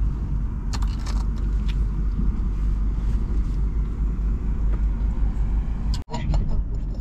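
Ceramic infrared gas burner running under a kettle of heating water: a steady low rumble with a few faint clicks, cut off briefly about six seconds in.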